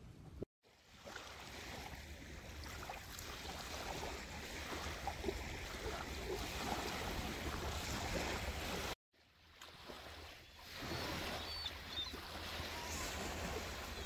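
Small waves washing and breaking on a pebbly beach: a steady rushing wash of water with wind on the microphone. The sound cuts out for a moment twice.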